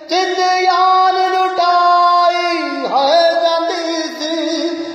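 A man singing a Punjabi folk song, holding a long wordless note. About three seconds in, the pitch bends and he settles onto another held note.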